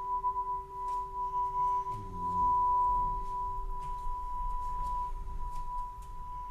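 Singing bowl ringing on with a long sustained tone that slowly fades. A short low sound comes in about two seconds in.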